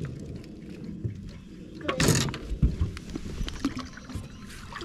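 Knocks and rustles of a bass being handled on a bass boat deck, with one louder brief rushing burst about two seconds in.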